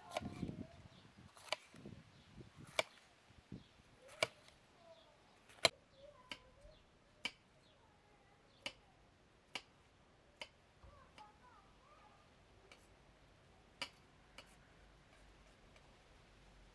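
A series of sharp single clicks or taps, irregularly spaced about a second apart, thinning out over the last few seconds.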